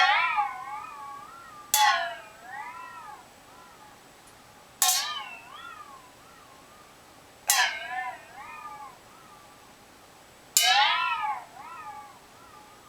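A cat meowing loudly five times, about every two and a half to three seconds. Each meow starts suddenly, bends down then up in pitch, and trails off into a softer second note.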